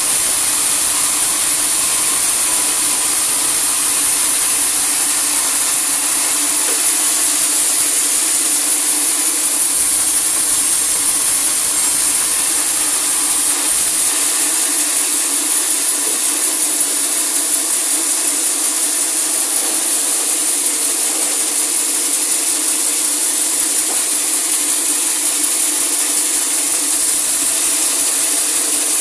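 Sawmill saw cutting through a large teak log: a steady high hiss with a hum underneath, unbroken throughout.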